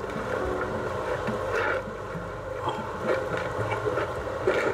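A hand squishing and turning raw chicken pieces through a spiced cornflour marinade in a glass bowl, giving soft, irregular squelches and rustles, over a steady low hum.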